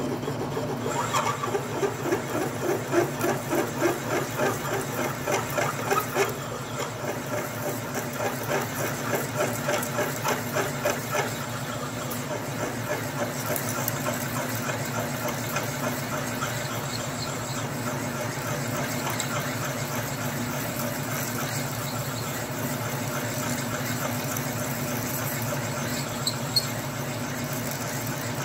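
Atlas metal lathe running slowly while a new twist drill bores into a steel part, with a rhythmic pulsing of about two beats a second for the first ten seconds or so. After that it settles into a steady running sound.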